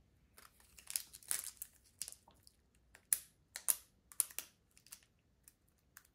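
Foil wrapper of a Pokémon trading card booster pack crinkling as it is handled and the cards inside are worked through: irregular crisp crinkles and rustles, the loudest about a second in and again between three and four and a half seconds, thinning out near the end.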